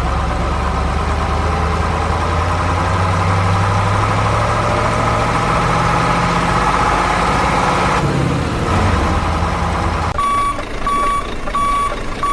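A truck engine runs steadily, its pitch rising slightly, for about eight seconds. About ten seconds in, a reversing alarm begins beeping, evenly spaced, roughly twice a second.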